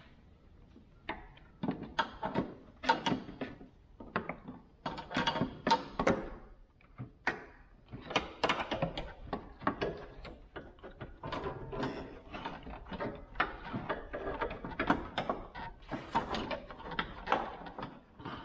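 Metal A/C refrigerant lines and their fittings being handled and fitted at the condenser: irregular clinks, clicks and light knocks of metal on metal.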